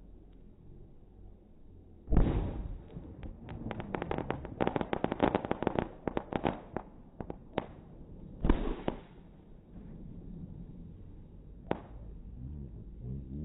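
Fireworks going off in slowed-down playback: a loud bang about two seconds in, then a dense run of sharp crackling pops for several seconds, a second big bang, and one last single pop near the end.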